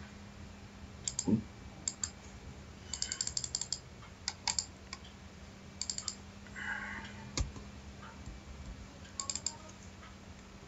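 Clicks from a computer mouse and keyboard in pairs and short groups, with a quick run of about a dozen clicks around three seconds in, over a faint steady hum.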